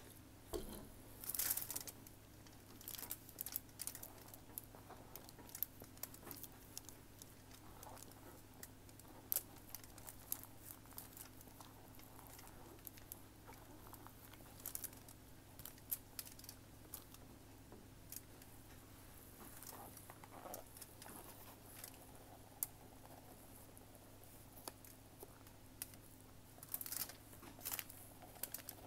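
Hands breaking up and squeezing damp cornstarch lumps: faint, scattered crunching and crackling. A louder crinkling of plastic gloves comes about a second in, and a cornstarch box rustles near the end.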